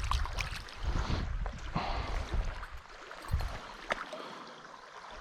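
Trout-stream water sloshing and gurgling, with a few short knocks and bumps; it quiets down after about three seconds.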